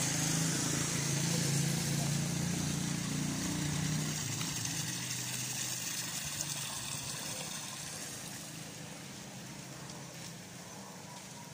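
Low hum of a running vehicle engine, strongest in the first few seconds and then fading away, over steady street noise.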